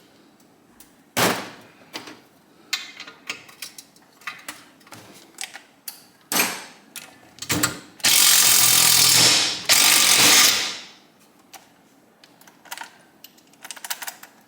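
Ratchet and metal hand tools working a spring-loaded bolt out of a Kawasaki KZ1000 engine case: scattered clicks and knocks. Then comes a loud steady rush of noise lasting about two and a half seconds, with a short break near its middle.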